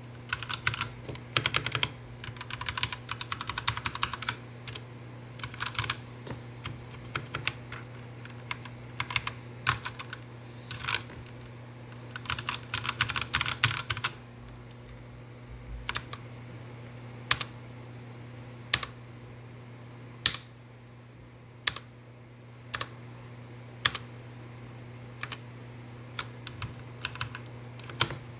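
Redragon K617 Fizz mechanical keyboard being typed on: quick runs of keystrokes for the first fourteen seconds or so, then single key presses about one a second. A steady low hum runs underneath.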